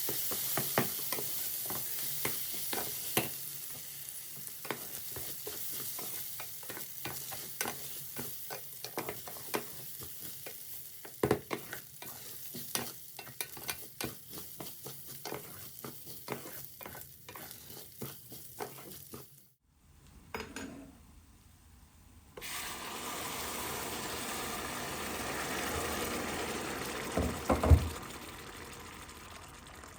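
Food sizzling in a frying pan while it is stirred, the spoon clicking against the pan many times over a steady hiss. About two-thirds in the sound cuts off, then a second steady hiss follows, with a few loud knocks near the end.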